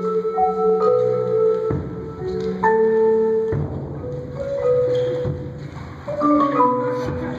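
Indoor percussion ensemble playing: marimbas and other mallet keyboards ring out slow, held notes over sustained low tones, with three louder accented hits, about two seconds in, halfway through and near the end.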